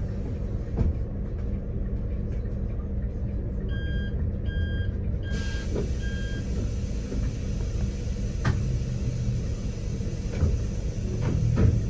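Steady low rumble of a vehicle on the move. A few seconds in come four short electronic beeps, evenly spaced about three-quarters of a second apart, and later a few light knocks.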